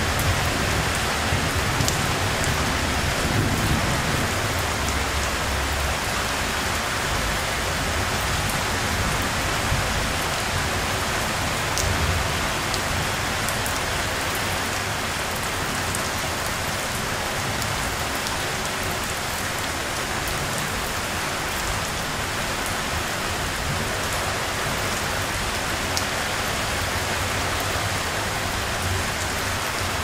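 Steady heavy rainfall, a constant even hiss of rain on surfaces, with a low rumble underneath during the first several seconds.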